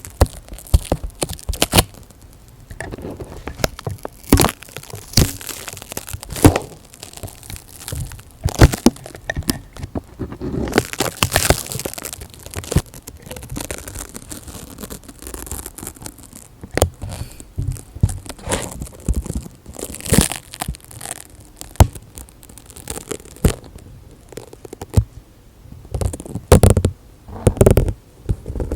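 Close-miked ASMR handling sounds: irregular crackles, rustles and sharp clicks right at the microphone, with no regular rhythm.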